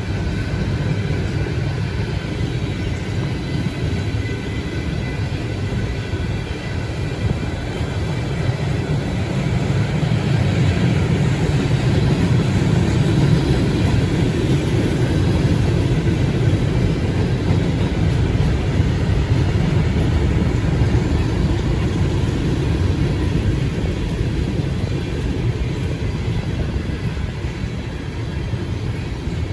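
A long CSX freight train rolling past: a steady rumble of wheels on rail that grows louder about a third of the way in and eases slightly near the end.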